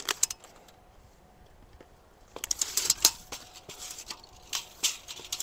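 Scattered rustles and light taps as a long spirit level is handled and set on top of a wooden post, busiest about halfway through with a few more near the end.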